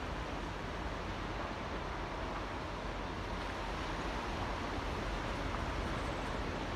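Small waves lapping and washing in a tidal channel, a steady wash of water noise with no separate breaking wave standing out.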